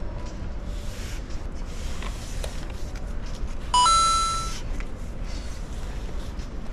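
Steady low rumble of a large indoor space. About four seconds in comes a short electronic beep: a brief lower note jumping to a held higher one for under a second, louder than anything else.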